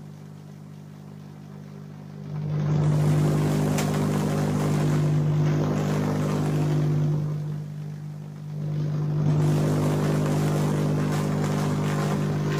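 GU39B vacuum tube Tesla coil running, its spark discharges giving a steady buzz. The buzz is softer for the first two seconds while the sparks are small, then much louder with long branching sparks, dipping briefly a little past the middle before coming back up.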